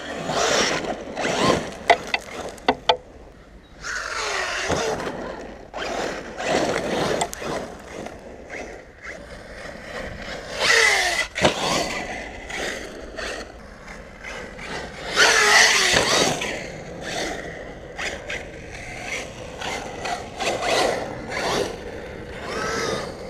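Arrma Talion brushless electric RC truggy driven hard on a dirt track. Its motor whines up and down in repeated bursts, its tyres scrape and spray gravel, and a few sharp knocks come about two to three seconds in.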